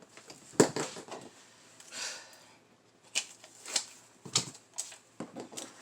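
Paper and cash being handled at a desk: a series of sharp clicks and taps with a brief rustle of paper about two seconds in.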